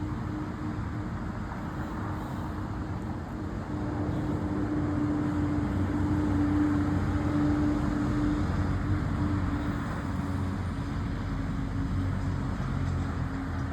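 Road traffic: a vehicle passes, its rumble swelling about four seconds in and fading a few seconds later, over a constant low hum.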